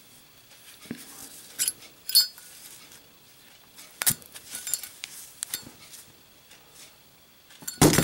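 Brass Zippo lighter handled: several sharp metallic clicks and clinks as it is opened and lit, then near the end the lit lighter is dropped and lands on the table with a loud clatter, the loudest sound.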